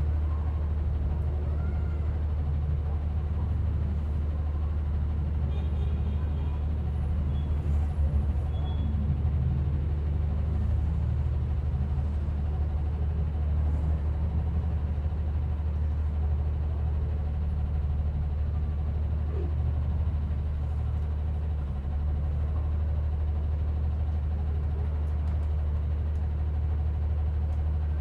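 Passenger bus travelling, heard from inside the cabin: a steady low engine drone with road noise. A brief rattle or bump comes about eight seconds in.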